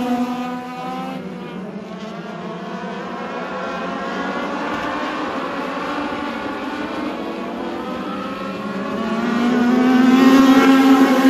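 Legend race car's Yamaha motorcycle engine at racing speed: the pitch drops as it comes off the throttle in the first couple of seconds, then rises steadily and gets louder as it accelerates hard toward the end.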